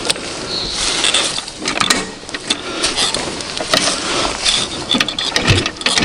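Two-stroke engine of a Soviet IZh motorcycle running with a rapid mechanical clatter, mixed with scattered crackling clicks.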